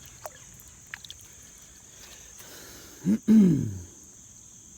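Steady high chirring of insects, with a man's short wordless vocal sound, a rising then falling grunt or hum, about three seconds in.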